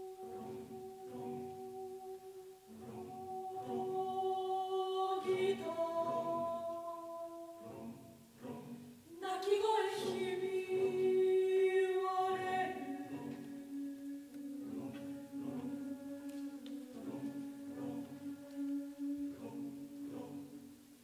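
Unaccompanied mixed choir singing: long held notes over short pulses repeated at a steady rate, swelling louder about nine seconds in, then settling onto a lower held chord.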